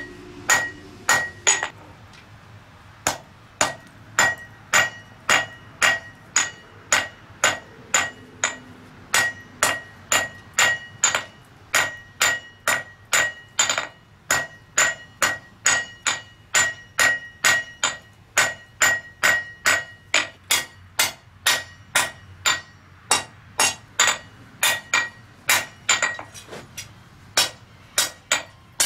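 Hand hammer striking red-hot mild steel bar on an anvil, a steady run of about two blows a second, each with a short metallic ring. The blows pause briefly about two seconds in.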